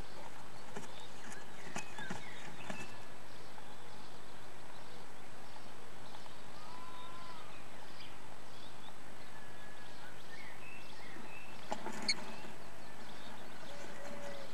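Common swift shuffling in its wooden nestbox: scratches and taps of claws and nest material against the wood, with a cluster about two seconds in and a louder one near the end, over a steady hiss. A few faint bird chirps are in the background.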